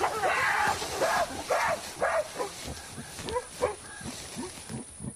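Mountain gorillas calling in a rapid series of short cries that slide in pitch, loud at first and fading toward the end: aggressive calls as females drive off a young male.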